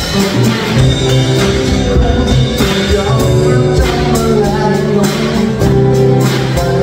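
A small band playing live: two acoustic guitars strummed over a Yamaha drum kit keeping a steady beat, with a man singing into the microphone.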